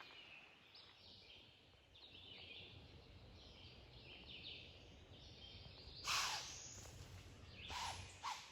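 Songbirds singing faintly in woodland, with a few crunching footsteps in the second half.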